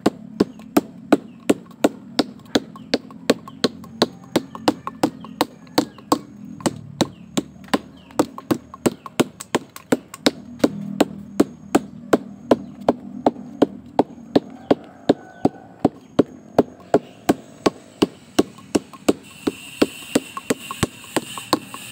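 Sugar palm male flower stalk being beaten gently with a mallet: a steady run of sharp knocks, about two to three a second. The light beating bruises the stalk so that it will give palm sap (nira) when tapped.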